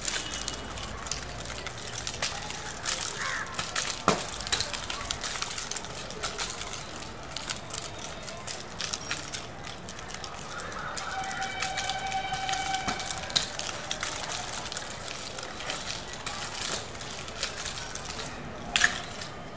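Two nunchaku being swung and twirled: dense sharp clicking and clacking from the chains and sticks, with a few louder single knocks.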